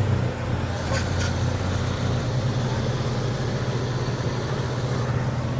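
Vehicle engine idling steadily, an even low hum, with a couple of faint clicks about a second in.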